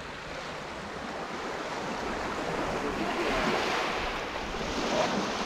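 Surf washing up the beach: a broad rush of wave noise that swells to its loudest about halfway through and then falls away.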